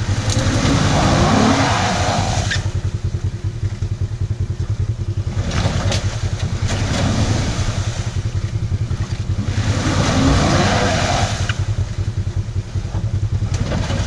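A lifted SUV's engine revving up twice as it strains to climb out of a muddy rut, with a hiss of tires spinning in the mud, over a steady low engine rumble.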